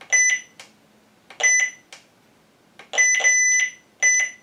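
Wi-Fi alarm base station beeping as its side button is long-pressed to put it into Wi-Fi setup mode: four short, high electronic beeps, the third held longer than the others, with a few soft clicks in between.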